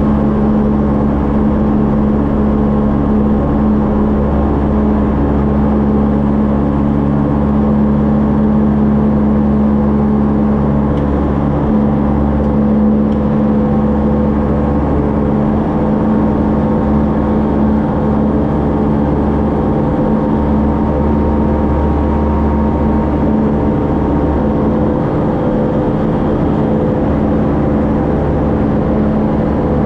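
Tecnam P2008JC light aircraft's Rotax 912 flat-four engine and propeller running steadily at high power during take-off.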